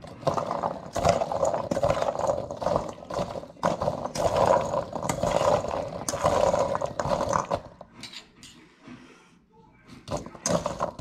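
Metal spoon stirring whole crabapples in a stainless steel bowl: the fruit tumbles and knocks against the ringing bowl with a steady clatter. The clatter dies down about eight seconds in and starts again near the end.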